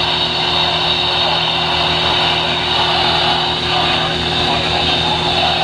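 Steady hiss of radio static with a constant low hum, from a weak NOAA Weather Radio signal.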